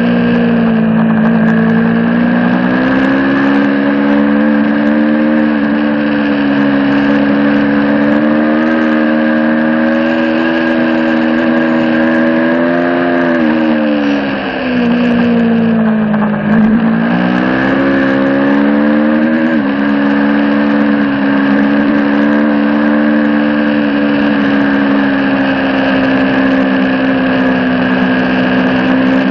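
2022 Aprilia Tuono V4 Factory's 1077 cc V4 engine with an Akrapovic slip-on exhaust, running hard at high revs. About halfway through, the pitch drops under hard braking, then climbs back as the throttle opens again.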